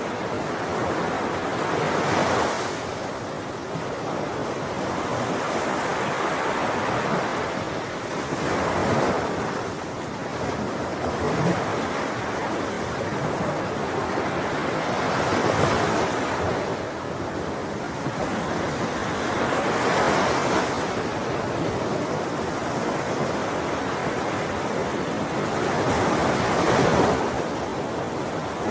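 Ocean waves breaking and washing on the shore in a steady surf, with a wave cresting every four to seven seconds.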